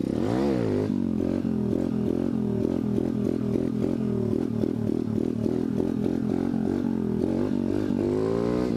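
A 125cc dirt bike engine running hard while the bike is held in a wheelie, its revs rising and falling quickly and evenly about three times a second. Near the end the revs climb smoothly.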